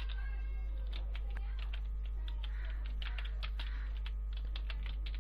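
Computer keyboard keys being typed, an irregular run of quick clicks, over a steady low electrical hum.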